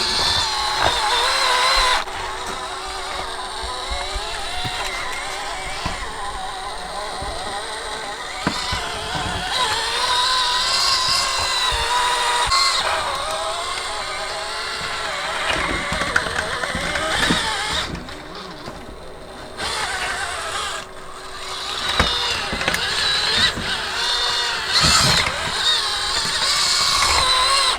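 Micro RC crawler's small electric motor and geared drivetrain whining as it crawls, the pitch rising and falling with the throttle, with a quieter lull about two-thirds of the way through.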